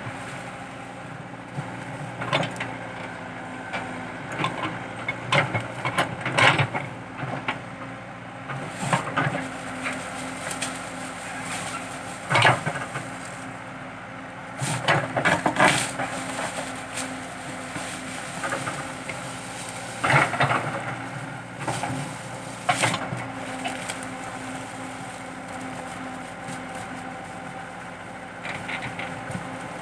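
Komatsu PC80 excavator's diesel engine running steadily under load while eucalyptus stumps and roots are dug out: repeated sharp cracking and snapping of wood, the loudest about halfway through.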